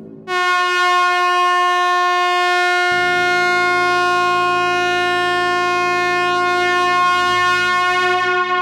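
Truck air horn sounding one long, steady, loud blast that starts abruptly; a lower-pitched layer joins about three seconds in.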